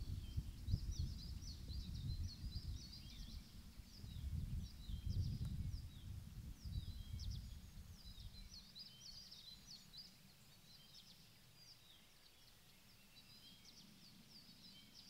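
Small birds chirping in quick high phrases throughout, over low gusts of wind buffeting the microphone that die away a little past halfway.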